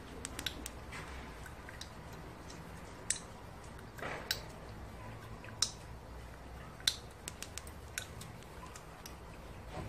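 Siberian chipmunk gnawing a strand of dry noodle, the noodle snapping and crunching in sharp, irregular clicks: a quick cluster near the start, then single snaps every second or so, with a few close together near the end.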